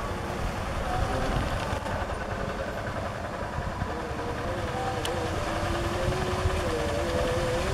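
Single-cylinder diesel engine of a two-wheel walking tractor running steadily under load as it works a flooded rice paddy.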